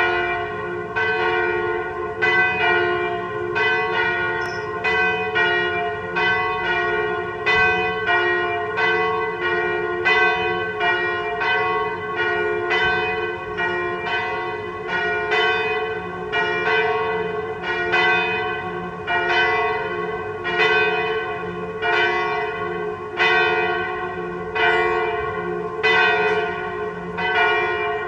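Two swinging church bells ringing a partial peal: the 983 kg Sint-Martinus bell, tuned to F and cast by Michiels in 1950, and the 771 kg Sint-Michaël bell, tuned to G-flat and cast by Van Aerschodt in 1836. They strike in a steady, even rhythm of about three strokes every two seconds, and each stroke's ring overlaps the next.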